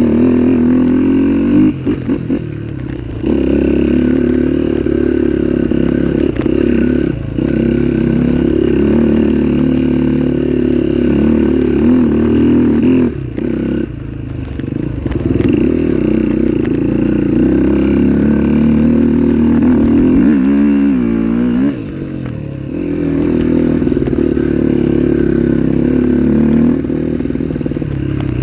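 Trail motorcycle engine running under load while riding, the throttle closing briefly a few times and the revs rising and falling quickly a little past two-thirds through.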